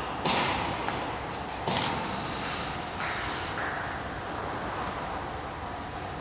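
Figure skate blades scraping on the ice three times, about a second and a half apart, over a steady background hiss.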